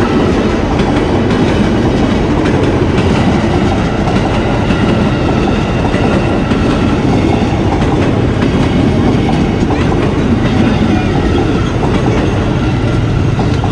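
An eight-car JR 205 series electric commuter train passing at close range over a level crossing. Its wheels run over the rails with a steady, loud rolling noise.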